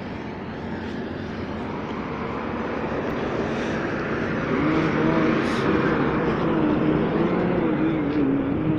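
A motor running and growing louder, with a wavering drone that comes in about halfway through and keeps going.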